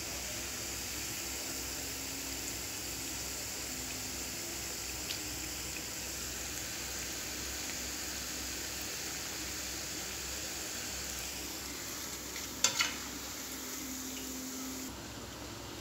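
Onion pakodi deep-frying in hot oil: a steady sizzle while a spoon turns the fritters. About thirteen seconds in come two sharp knocks close together, and the sizzle drops away near the end.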